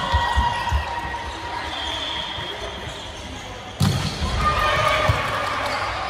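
Volleyball struck hard with a sharp smack about four seconds in, with a few dull thuds near the start, in a gym rally.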